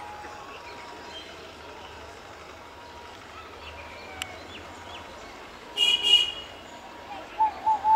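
Electric locomotive horn heard from an approaching train: a short high-pitched double toot about six seconds in, followed by a few short blips near the end, over faint open-air platform background.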